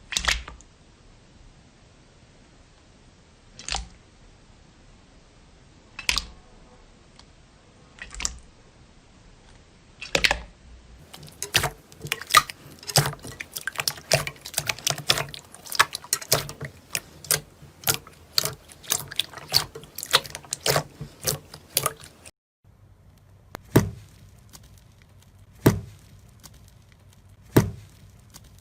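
Slime being pressed and squeezed by hand. It makes single sharp pops about two seconds apart, then a dense run of quick crackling clicks as air pockets burst. After a brief gap come three more pops.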